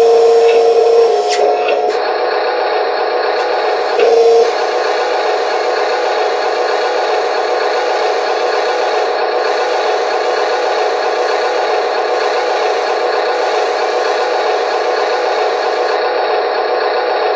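Electric gear drive of the Amewi 22500 1:14 metal RC wheel loader's bucket whirring with a rattly, rasping gear noise as the bucket slowly tilts. A louder, higher whine comes in during the first second and again briefly at about four seconds.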